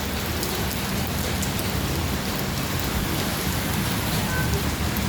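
Steady rain falling, an even hiss with scattered drop ticks and a steady low rumble underneath.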